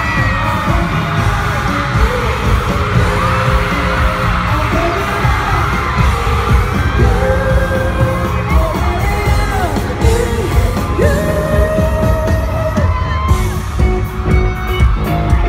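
A live pop-rock band playing, heard from among the audience: a male singer over electric bass and a steady drum beat.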